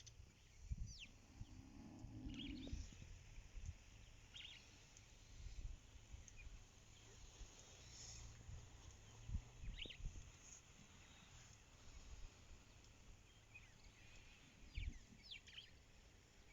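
Faint, scattered high bird chirps, a few at a time, over a steady low rumble of outdoor background noise.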